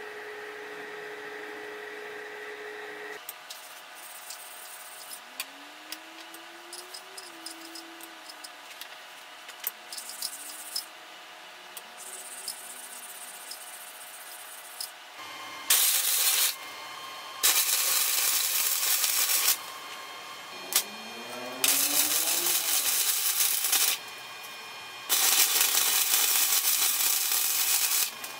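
Light clinks and handling of metal bars in a steel bench vise, then an electric arc welder crackling in four bursts of one to three seconds each, tack-welding the stacked wrought iron and 1084 steel into a billet.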